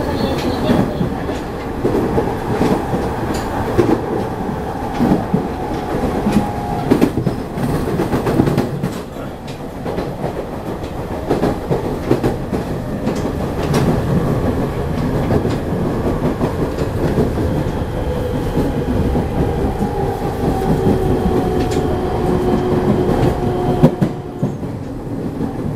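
A JR 209 series electric commuter train running, heard from inside a motor car: a steady rumble with wheels clicking over rail joints and a faint steady whine from the traction motors. The whine eases slightly lower in pitch over the last few seconds.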